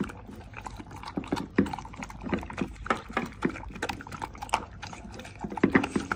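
An American Bully dog eating from a stainless steel bowl: a string of irregular chomps and smacks as it works through the food.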